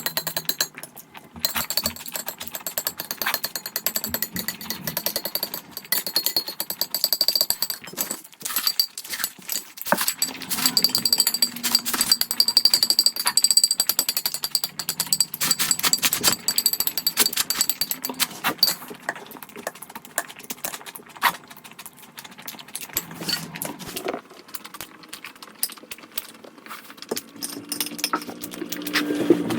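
Close-miked mukbang eating sounds: chewing and mouth noises making a dense run of rapid clicks, which thins out after about 19 seconds in.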